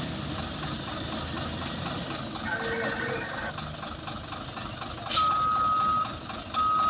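Heavy diesel engines running at low idle, then a brief hiss about five seconds in, followed by a reversing alarm starting up in evenly spaced beeps about once a second as one of the heavy vehicles backs up.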